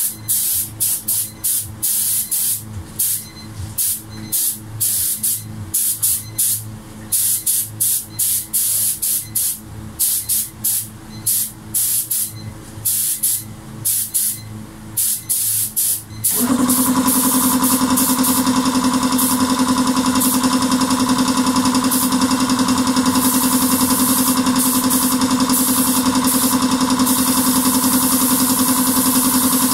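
Spray gun hissing in rapid short bursts as clear coat is sprayed. A bit past halfway, a motor-driven air compressor starts with a sudden jump in loudness and runs steadily with a pulsing hum, while the spray hiss goes on over it.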